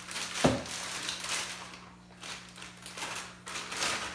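Clear plastic wrapping crinkling and rustling as a tripod is pulled out of it, in irregular crackles, with one sharp knock about half a second in.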